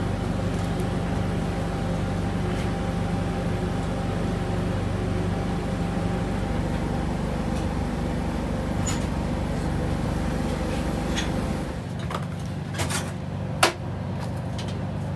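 Steady machine hum with a few steady tones inside a sewer CCTV inspection truck, dropping away about twelve seconds in. After that come a few sharp clicks and knocks, the loudest shortly before the end.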